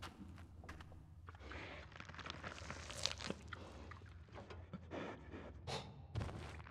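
Film sound effects of movement on rock in a cave: scattered soft crunches and scrapes over a low steady rumble, with louder ones about three seconds and six seconds in.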